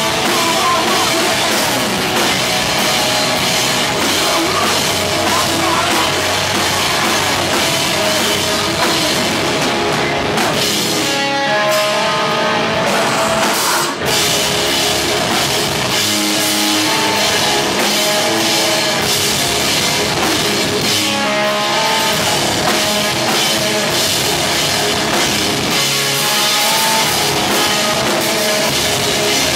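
A live heavy rock band plays loud, with distorted electric guitars, bass and a drum kit. Near the middle the low end and drums fall away for a few seconds, leaving separate guitar notes ringing. After a brief break the full band comes back in.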